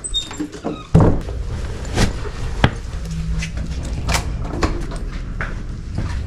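Doors being opened and pushed through: a loud thump about a second in, then several sharp clicks and knocks from a mesh screen door, over a steady low background hum.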